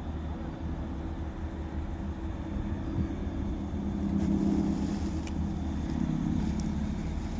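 Crane's diesel engine running steadily with a low hum, getting a little louder about four seconds in as the boom works under load.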